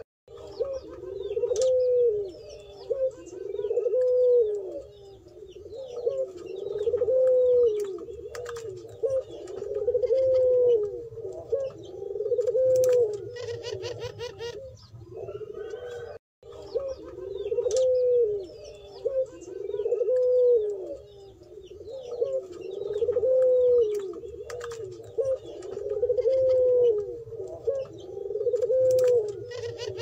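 Puter pelung doves cooing over and over, a long rolling coo about every two to three seconds. The sound cuts out briefly about halfway, and faint chirps of small birds sound behind the cooing.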